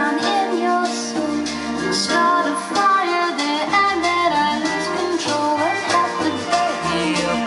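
Recorded music with a melody over bass notes that come and go, played back through Sonus Faber Concertino bookshelf speakers driven by a Classé Twenty-Five power amplifier.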